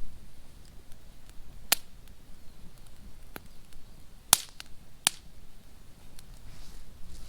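Wood bonfire crackling, with a few separate sharp pops spaced a second or so apart over a low background.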